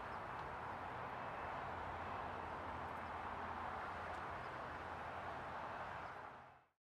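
Steady airport background noise, an even hiss with a low hum underneath, fading out near the end.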